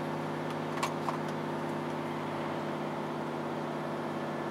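Steady drone of a semi-truck's diesel engine and road noise heard inside the cab while driving, with two faint clicks about a second in.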